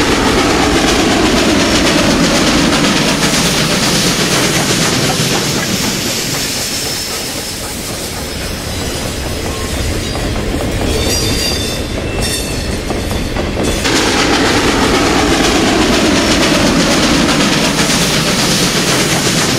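Western Maryland Scenic Railroad steam locomotive running hard as it approaches, a loud, continuous mix of exhaust and rail noise. Midway the sound dips a little, and a thin high squeal runs for a few seconds, then cuts off abruptly.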